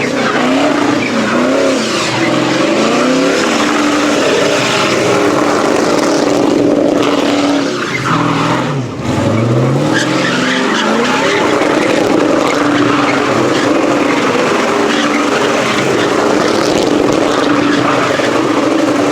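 Chevy truck doing a burnout: the engine is held at high revs while the tires spin and squeal. About halfway through, the revs drop briefly and then climb again.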